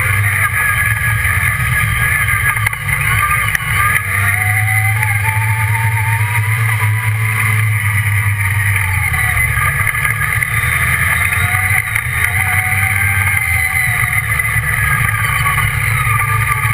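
Redline Revolt off-road buggy's engine running under load while driving on a dirt track, a steady drone whose pitch rises and falls with the throttle.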